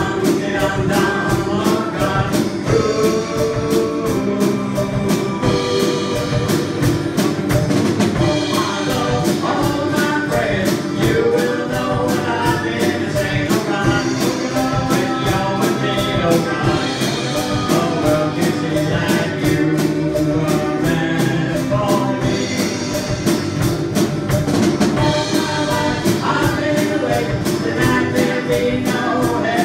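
Praise band playing live, with vocalists singing into microphones over a steady drum beat.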